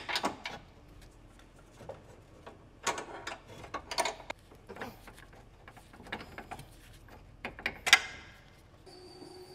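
Metal clinks and ticks of a combination wrench working a nut on a car's front suspension, coming in short clusters, with one sharp metallic knock near the end.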